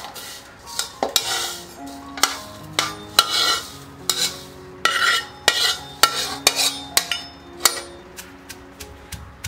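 Metal spatula scraping and knocking against a wok as sliced lemongrass, shallots and garlic are dry-fried, then scraped out of the wok into a stone mortar. Near the end a pestle starts pounding them in the stone mortar, with quicker, lighter knocks. Soft background music runs underneath.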